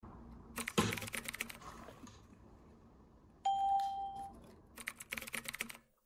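A wooden cabinet's lock and door being worked: a cluster of sharp clicks and knocks about a second in and again near the end. A single short electronic beep sounds midway, about a second long.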